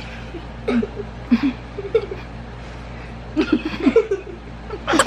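Muffled, closed-mouth giggles and snickers from people whose mouths are stuffed with marshmallows, in short bursts with a denser run of them about three and a half seconds in.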